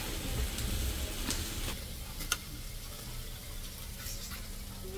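Pork sizzling on a tabletop Korean barbecue grill pan over a portable gas burner, with a few sharp clicks of metal tongs against the pan.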